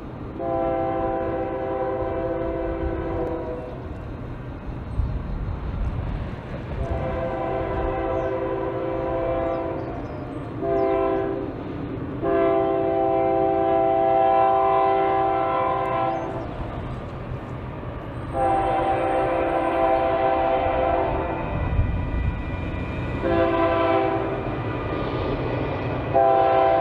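Multi-chime train horn sounding repeated blasts in the long, long, short, long pattern of a grade-crossing signal, then starting the pattern again, over a low rumble of the running train.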